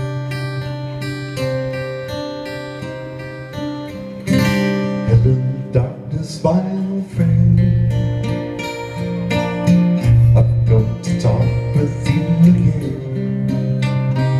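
Music: acoustic guitar strummed and picked over a steady low note, with a few sliding, voice-like tones around the middle.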